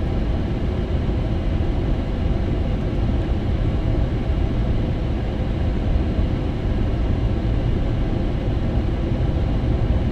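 Steady road and engine noise heard from inside a moving vehicle's cabin: an even low rumble of tyres and engine.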